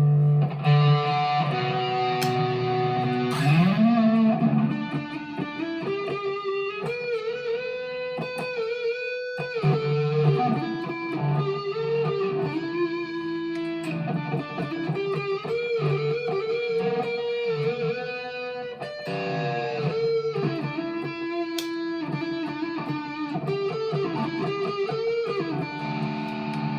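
Harley Benton TE-90 FLT electric guitar with P-90 pickups, played through an amplifier on the both-pickups setting. It plays single-note lines with held notes, string bends and vibrato, with a brief break about nine seconds in.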